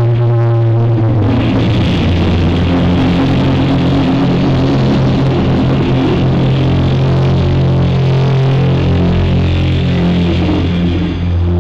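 Live rock band music led by an electric guitar solo with long held notes, played loud over a stage PA. The recording is heavily distorted and smeared because the camera's microphone is broken.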